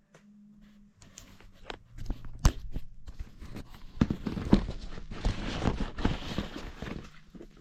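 Irregular knocks, clicks and scraping rustles of handling and movement, starting about a second in and growing busier, with the sharpest knocks about two and a half and four and a half seconds in.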